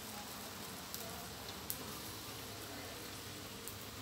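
Glass noodles and vegetables sizzling faintly and steadily in a hot stainless steel wok, with a couple of light ticks.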